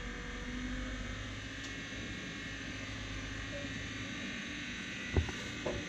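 Rock-crawling Jeep's engine running steadily at low revs, heard from a short distance. Two sharp knocks come about five seconds in.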